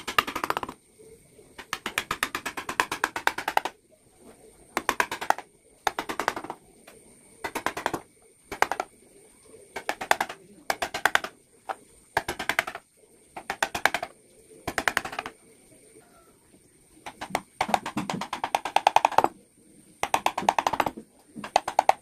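Carving chisel struck with a mallet into wood in quick bursts of rapid taps, about a dozen short bursts with pauses between them. The longest burst comes near the end.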